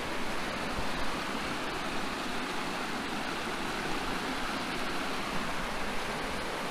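Stream water rushing steadily over a rocky bed.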